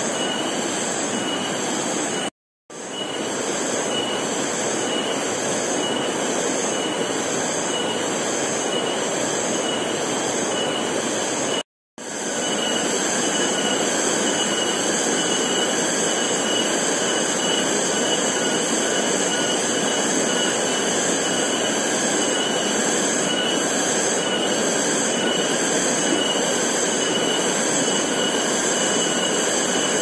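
Steady forest ambience dominated by a chorus of buzzing insects, with high pulsing whines over a dense hiss. The sound cuts out briefly twice, about two and a half seconds in and about twelve seconds in.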